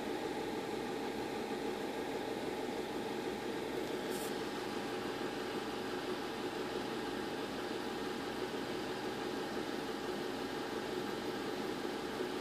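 A steady mechanical hum with hiss, like a small motor running without change.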